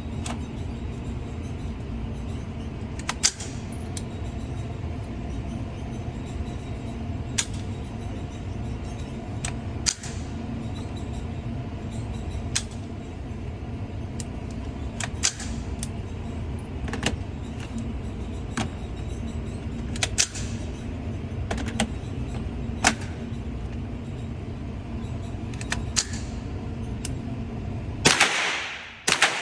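A steady low rumble with small sharp cracks every two to three seconds. Near the end come two loud .22 rimfire gunshots, each with a ringing echo that dies away.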